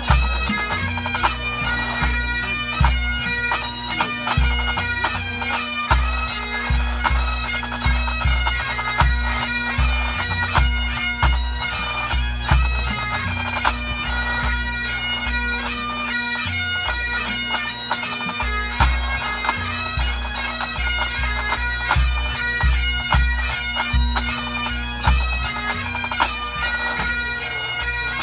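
Pipe band playing: Great Highland bagpipes sound a melody over a steady drone, with the drum corps' snare drums and a bass drum beating time.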